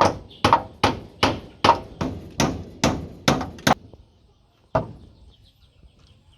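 Blows of a hand tool, about ten in a steady run of two to three a second, then one more after a pause of about a second.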